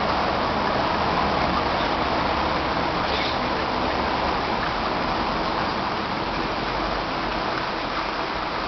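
Steady rushing noise of a reef aquarium's water circulation: pumps running and water flowing through the tank.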